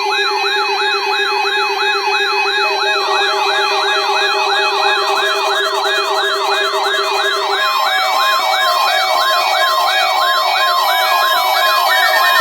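Electronic warning alarm of a weather radio alert test, a siren-like tone sweeping up rapidly about three times a second over steady tones. A second sweeping layer and further steady tones join partway through, and a low steady tone drops out after about eight seconds.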